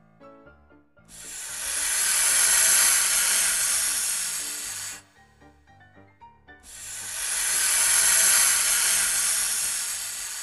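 Snake hissing: two long hisses of about four seconds each, each swelling and then fading, over soft background music.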